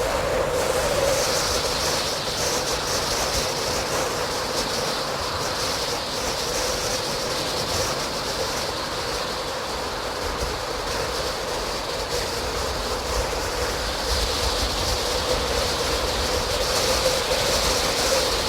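Steady running noise of a moving vehicle: a continuous rumble with a hiss that comes in about a second in, fades through the middle and grows again near the end.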